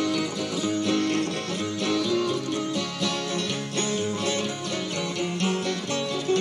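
Instrumental traditional mountain dulcimer music: a plucked-string melody over guitar accompaniment with a low bass line, in a bluegrass-country style.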